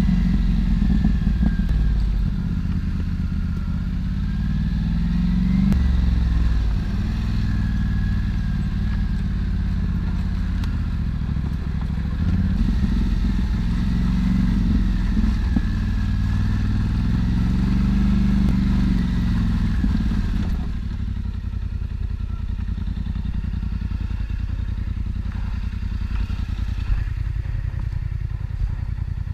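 Quad bike (ATV) engine running under load, its pitch rising and falling with the throttle. About two-thirds in it drops to a steady low idle.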